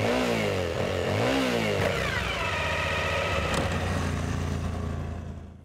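Motorcycle engine revving: two quick blips of the throttle, then the revs fall away and it runs steadily with a pulsing beat before cutting off abruptly near the end.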